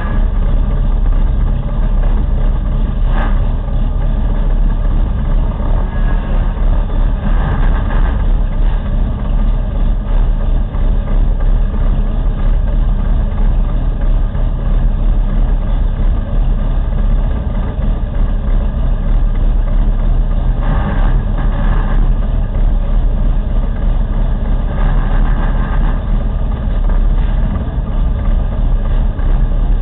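Formula Mazda race car's rotary engine idling, heard from the cockpit as a steady low running sound, with a few short swells scattered through.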